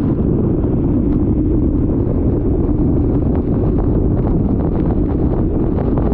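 Rental racing kart running at speed, its engine drone mixed with heavy wind buffeting on the microphone, with scattered short ticks throughout.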